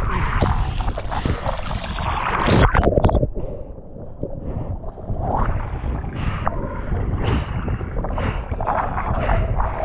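Wind buffeting the microphone in a steady low rumble, with repeated surges of water splashing and spraying as a kiteboard rides across choppy water; the biggest splash comes a little under three seconds in.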